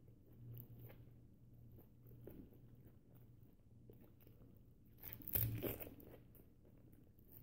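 A person biting and chewing a whole unpeeled banana, peel and all, with one louder crunch about five seconds in.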